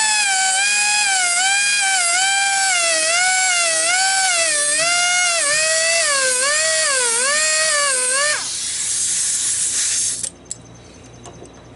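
Handheld rotary grinder with a sharpening stone, running at high speed against the teeth of a sawmill band blade. Its whine sags in pitch about once a second as the stone bites each tooth. About eight seconds in the whine cuts out, leaving a hiss that stops about two seconds later, then a few light clicks.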